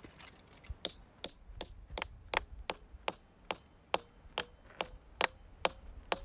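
Steel piton hammer striking a forged-steel lost arrow piton in a rock crack, a steady run of about fifteen sharp metallic blows at roughly two and a half a second. From about halfway on each blow leaves a short ringing note that climbs a little, as the pin bites tighter and becomes hard to drive further.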